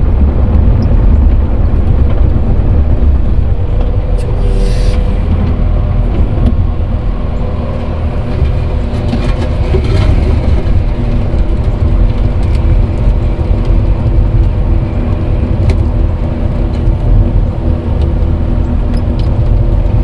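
Heavy earthmoving machine's engine running steadily under load while grading dirt, close and loud, with a few sharp clanks and rattles.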